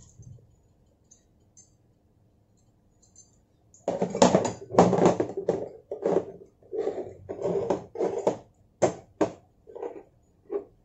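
Stainless steel mixer beaters and dough hooks clattering and knocking as they are handled and set down on a table: a run of irregular metallic knocks and scrapes starting about four seconds in.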